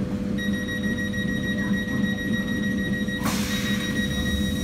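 Door warning tone on a Class 365 electric multiple unit: a steady high-pitched tone starts about half a second in and holds, over the stationary train's steady electrical hum. About three seconds in, a hiss joins as the doors begin to close.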